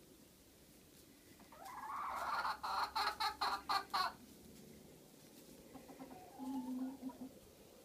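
Chickens clucking: one call, then a rapid run of loud clucks, about five a second, that stops abruptly, and a few softer, lower clucks near the end.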